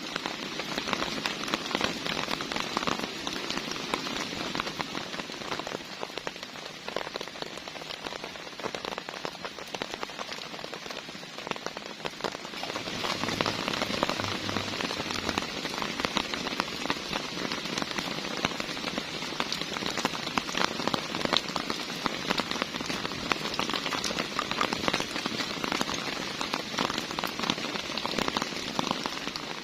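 Heavy rain falling steadily, with many close individual drops ticking; it grows a little louder about halfway through.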